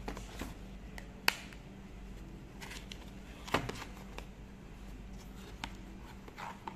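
Thin cardboard product box being handled and opened: its end flap is pulled open and the inner tray with its clear plastic insert slid out. This gives scattered clicks, scrapes and rustles, with the sharpest click about a second in and another rustle about three and a half seconds in.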